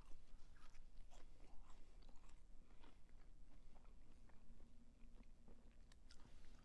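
Close-up chewing of crunchy fried fast food, most likely french fries: scattered soft crunches and mouth clicks, faint overall.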